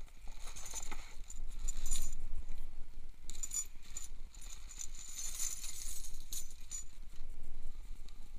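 Clear plastic parts bags crinkling and rustling as they are handled, with small metal bolts and parts clinking inside them.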